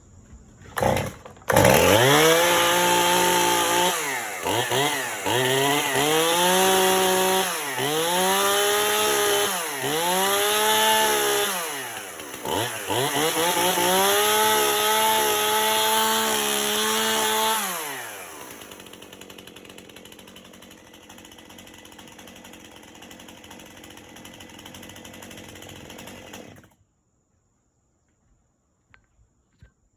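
Two-stroke gasoline chainsaw pull-started on half choke, catching about a second in and revved up and down several times, then held at high speed. About 18 s in it falls back to a quiet idle, and the engine cuts off near the end.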